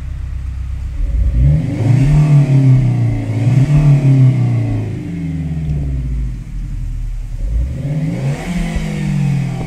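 Renault Clio RS 2015's turbocharged 1.6-litre four-cylinder engine and exhaust revved twice. The first rev climbs about a second in and holds for a few seconds before dropping back to idle. A shorter second rev comes near the end.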